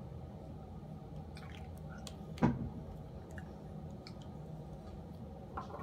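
Hands handling a small alcohol ink bottle and stamp: a few faint clicks, and one sharp click about two and a half seconds in, over a low steady room hum.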